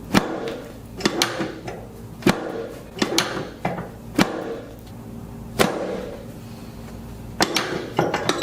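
Joints cracking during chiropractic adjustments: a string of sharp pops and cracks, roughly one a second, with a quick double crack near the end.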